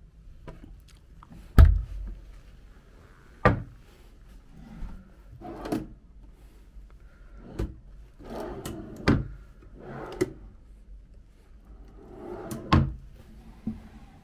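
Wooden hotel-room furniture being handled: a cabinet door and a desk drawer opened and shut, giving a string of separate knocks and short sliding rumbles. The loudest knock comes about one and a half seconds in.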